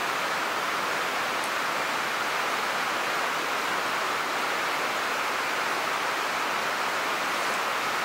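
Steady, even hiss of outdoor noise at a constant level, with no distinct events.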